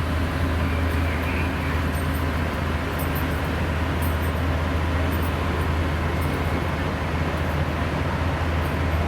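Large diesel engine of a fire truck idling steadily, a constant low hum, with a faint high tick about once a second.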